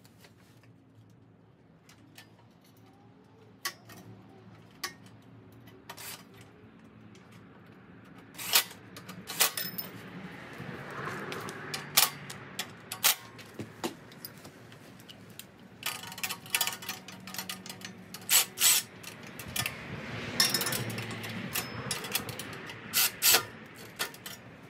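Sharp metallic clinks and clanks of tools and hardware against the engine's muffler and sheet-metal heat shield, coming thicker from about a third of the way in, with two longer noisy stretches of work between them.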